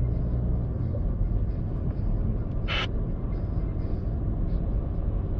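Car driving on a road, heard from inside the cabin: a steady low rumble of road and engine noise, with one short hiss about halfway through.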